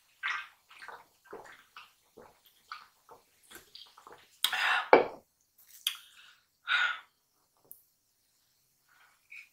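A person drinking from a can in gulps: a run of small swallows, about two a second, followed by a few louder single sounds in the second half.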